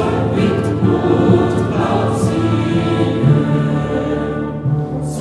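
Background music: choral singing over orchestral accompaniment.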